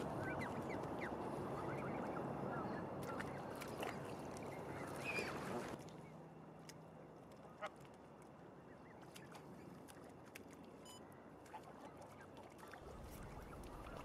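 Canada geese at the water's edge giving a few short, soft calls over a steady rushing background. The level drops abruptly about six seconds in, leaving quieter background with only an odd faint call.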